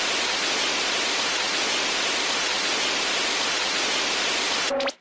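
Steady TV-static hiss from a video intro sound effect, ending near the end in a brief electronic glitch: a couple of short tones and a quick falling sweep.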